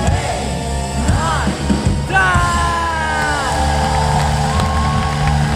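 Live worship band playing, with a singer's yelled, held line that glides down in pitch about two seconds in over steady chords and bass.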